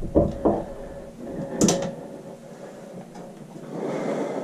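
A few sharp clicks and one short, bright metallic scrape from a screwdriver and screw working at the metal fan housing, then softer handling rustle.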